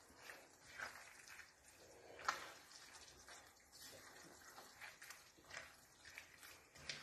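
Faint, scattered soft scrapes of a silicone spatula stirring chopped vegetables in a non-stick frying pan, the clearest about two seconds in.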